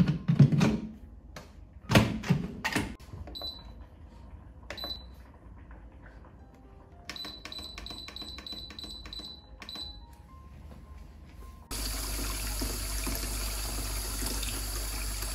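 Electric pressure cooker lid being closed and locked with several clunks, then the cooker's control panel giving short high beeps, a run of them with clicks as its buttons are pressed. About twelve seconds in, tap water starts running steadily into a stainless steel bowl in a sink.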